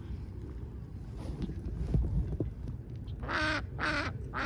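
Waterfowl calling: two harsh, honking calls in quick succession about three seconds in, with the start of a third at the end, over a low steady rumble.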